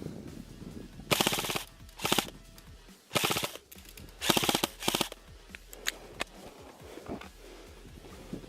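Airsoft guns firing in about five short automatic bursts of rapid clicking, followed by a few single clicks.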